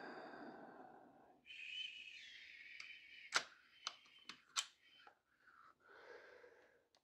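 Small sharp clicks and light rattling from a precision screwdriver bit set as a bit is picked out and fitted to the driver: about five clicks in the middle. Near the end comes a soft scrape of the small driver at a tiny screw.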